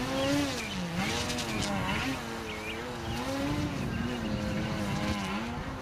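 E-flite Beast 60E RC biplane's electric motor and propeller running in a hover, the pitch of the drone rising and falling again and again as the throttle is worked to hold the plane up.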